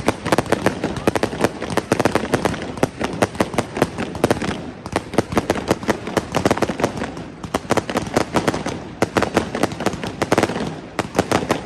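Fireworks going off in a dense barrage of sharp bangs and crackles, several reports a second, thinning briefly a few times before picking up again.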